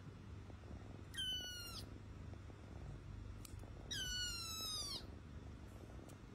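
A cat giving two high-pitched mews that slide down in pitch, about three seconds apart, over a low steady hum.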